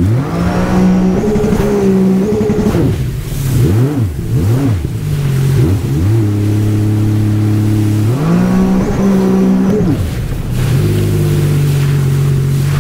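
Jet ski engine under way on open water, its pitch rising sharply just after the start. Around the middle it swoops up and down three or four times in quick succession, climbs again, then settles into a steady run near the end.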